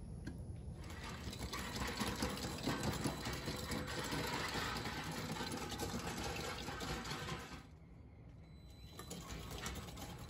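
Low-profile tracked electric robot's drive motors whirring as it drives, dipping for about a second near the end.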